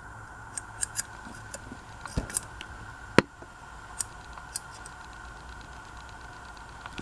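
Scattered light clicks and taps of small parts being handled, with one sharper click a little after three seconds in, over a faint steady high hum.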